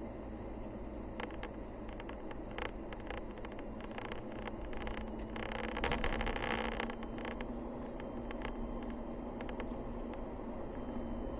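Vehicle driving on a narrow paved mountain forest road: steady engine and tyre rumble with scattered small clicks and rattles. Around the middle there is a louder hiss lasting about a second and a half.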